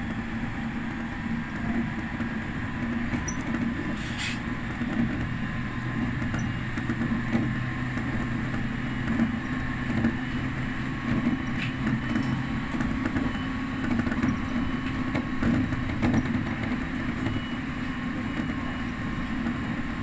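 Electric train running along the track, heard from inside the front car: a steady rumble of wheels on rail with a low hum, and one sharp click about four seconds in.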